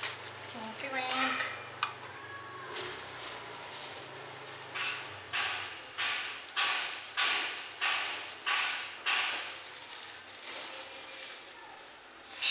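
Clinks and scrapes against a stainless-steel colander as snack ingredients are mixed in it, with a regular run of strokes, about two a second, through the middle stretch.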